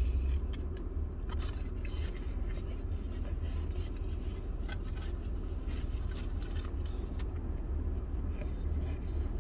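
A person chewing a spicy chicken sandwich, with scattered soft clicks and smacks of the mouth and food, over the steady low rumble of a car cabin.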